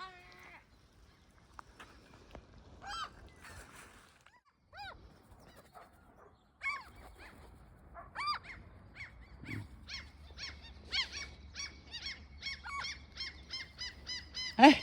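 Birds calling: a string of short calls, each rising and falling in pitch. They are scattered at first and come in a quick run from about eight seconds in. A sharp knock near the end.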